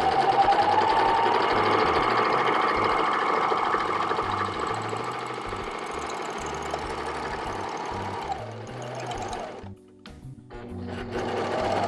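Juki MO-1000 serger sewing a three-thread rolled hem, its motor speeding up in the first second or so and then running fast and steady. It stops about nine and a half seconds in, then starts again near the end.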